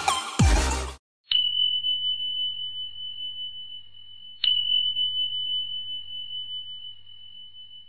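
Electronic dance music cuts off about a second in, then a bell-like ding sounds twice, about three seconds apart, each one a single high tone that rings on and slowly fades.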